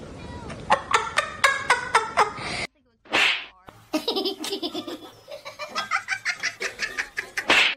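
Laughter in quick repeated ha-ha pulses, breaking off for a moment a little under three seconds in, then starting again. In the gap there is one short hiss.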